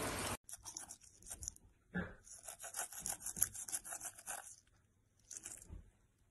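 Toothbrush bristles scrubbing a German shepherd's teeth: quick rasping strokes in three runs with short pauses between. A moment of water noise and music cuts off sharply at the start.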